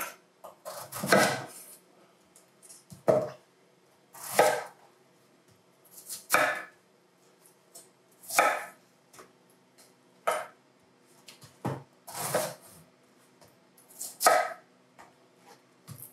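Chef's knife cutting through a red cabbage and onto a wooden cutting board: about nine separate cuts, roughly one every two seconds.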